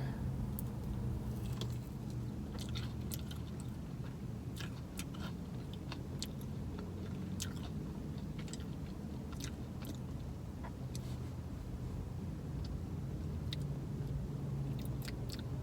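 Close-up chewing of a sauced boneless chicken wing: soft wet mouth clicks and smacks scattered irregularly, over a steady low hum.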